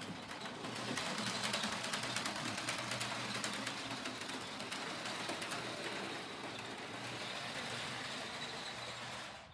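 HO-scale model train running around the track loop: a steady electric-motor and wheel rumble with rapid fine clicking from the wheels on the rails. It dies away and stops shortly before the end.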